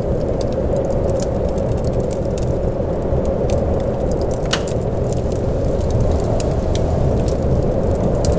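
Steady rain ambience: a dense, low wash of rainfall, with many scattered sharp ticks and crackles over it.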